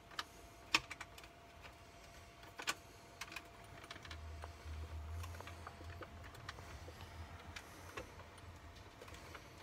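Hard plastic clicks and taps from the head of a Ricoh MP30 portable overhead projector as it is handled: the mirror flap, focus slider and lamp housing cover being moved. A sharp click just under a second in is the loudest, with a few more scattered clicks and a low rumble in the middle.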